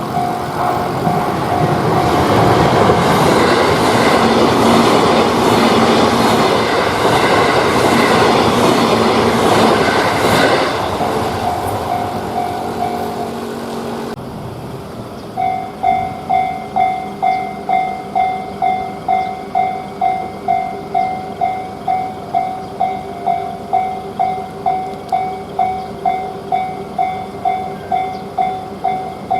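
Japanese railroad crossing warning bell ringing while a train passes, its wheels clattering over the rail joints. After a sudden cut, another crossing's bell rings on its own at about two strokes a second.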